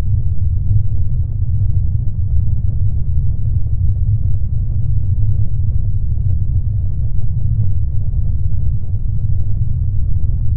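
Steady, deep rumble of a ship, heavy in the bass with little above it, cutting off abruptly at the end.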